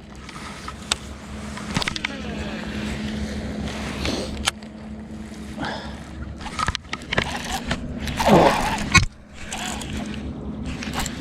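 Boat motor running with a steady hum, with scattered clicks and knocks on top.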